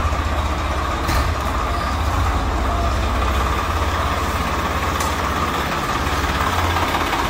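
Swaraj 855 tractor's three-cylinder diesel engine running at a steady idle, a low even chug as the tractor moves slowly forward.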